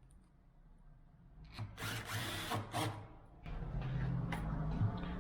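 A power drill running steadily for the last couple of seconds, likely driving screws while a door lock is fitted. Before it starts there are a few short handling noises.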